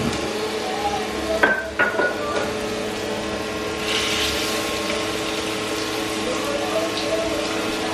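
Cooking at a stovetop: a steady hum and a sizzling hiss from a skillet of food, with two sharp metal clanks of a utensil against the pan about a second and a half in.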